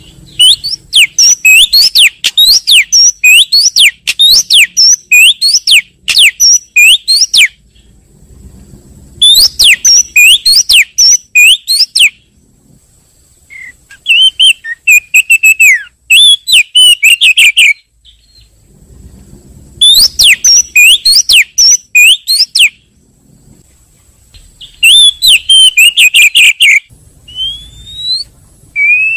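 Oriental magpie-robin (kacer) calling in five loud bursts of rapid, sharp, sweeping whistled notes, each a few seconds long with short pauses between, played as a lure call for trapping the species. Near the end come a few separate rising whistles.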